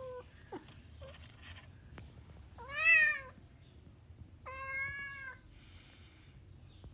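Orange house cat meowing insistently to be let outside: a short call at the start, a loud call that rises and falls about three seconds in, then a longer, steadier meow a second and a half later.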